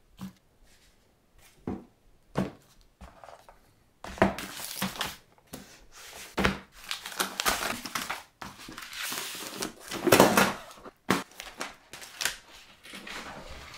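Objects and papers being handled on a cluttered desk: a few light knocks at first, then a stretch of paper rustling and crinkling, loudest about ten seconds in.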